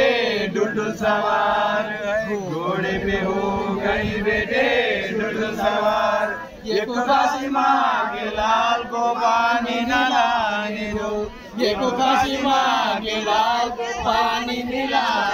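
Voices singing a Muharram elegy in a chanting melody, their pitch wavering, over a steady low tone underneath.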